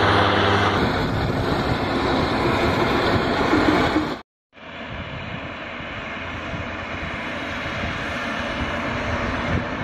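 Small propeller airliner's engines running on the ground, a loud steady engine noise with a low hum early on. The sound cuts out completely for a moment a little past four seconds in, then comes back as a steady, slightly quieter engine noise.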